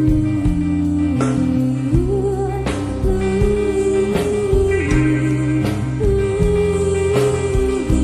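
Music: long held melody notes that slide from pitch to pitch over a moving bass line, with a steady beat.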